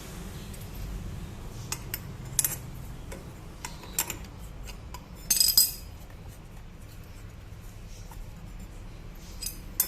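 Metal tools and transmission parts clinking and tapping as the clutch bell, washer and nut are fitted onto the shaft of a scooter's CVT, with a louder metallic clatter about halfway through.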